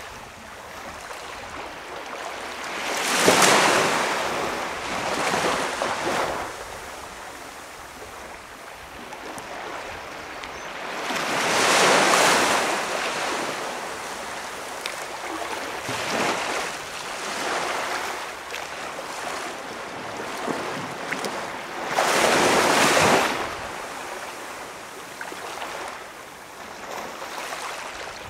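Small waves breaking and washing up on a calm beach. Each surge swells and fades over a second or two, the biggest about every nine or ten seconds, with a softer wash between them.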